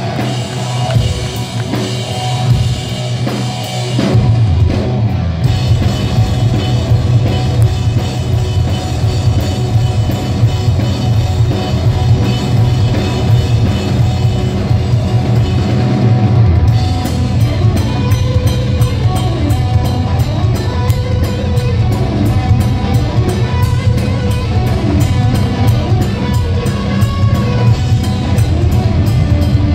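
Heavy rock band playing live and loud: distorted electric guitars, bass and a drum kit. The band comes in fuller about four seconds in, and from about sixteen seconds a fast, even cymbal beat drives the song.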